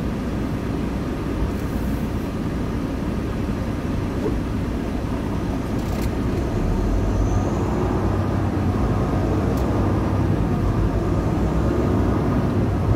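Volvo VNL860 semi truck running in city traffic, heard from inside the cab as a steady low engine and road rumble. It grows a little louder from about seven seconds in as the truck pulls ahead.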